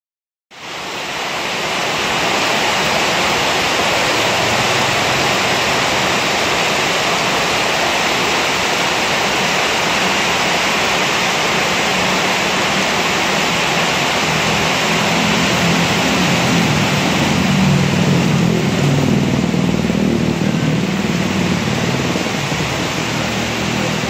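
Heavy rain pouring steadily, a dense, even hiss. About halfway through, a low rumble joins in beneath it.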